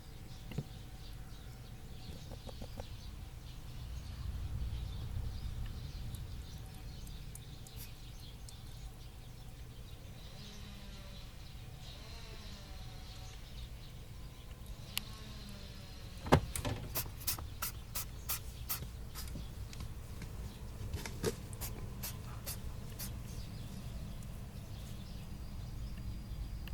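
Pet rabbit sneezing in quick runs of short, sharp sneezes: a burst of about eight or nine a little past halfway, then another handful a few seconds later, after a quiet stretch. The repeated sneezing comes from an itchy nose.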